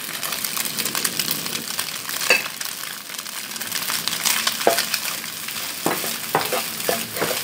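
Cold cooked rice sizzling with egg in hot oil in a pan as it is stirred with a wooden spatula, with frequent scrapes and knocks of the spatula against the pan.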